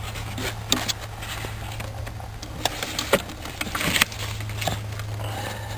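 Hot engine oil draining from a small snowblower engine's drain-plug hole down a cardboard chute into a container, with a few sharp clicks and knocks over a low steady hum.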